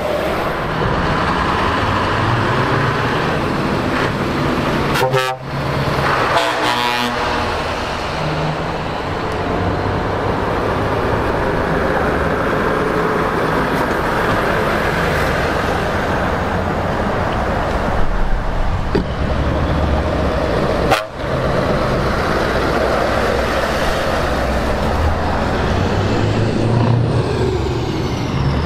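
Heavy trucks driving past one after another at close range, their diesel engines and tyres running steadily, with truck horns sounding briefly now and then.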